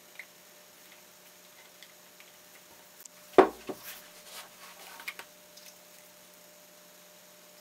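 Card model pieces handled and set down on a wooden tabletop: light taps and rustles, with one louder knock about three and a half seconds in, followed by a short run of smaller clicks. A faint steady hum underneath.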